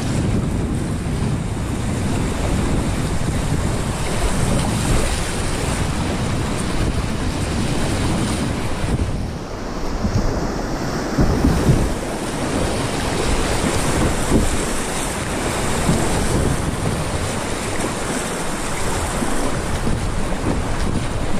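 Whitewater of a small creek rapid rushing around a kayak, with wind rumbling on the microphone; the water surges louder for a moment about halfway through.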